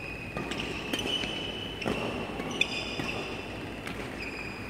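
Badminton rally: several sharp racket strikes on a shuttlecock over a few seconds, the loudest a little past halfway, with shoes squeaking on the court floor.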